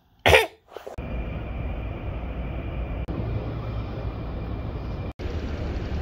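A short, loud vocal burst like a cough, then a steady low rumble of outdoor noise on a handheld camera's microphone while walking, with a faint steady high whine. The sound cuts out for an instant about five seconds in.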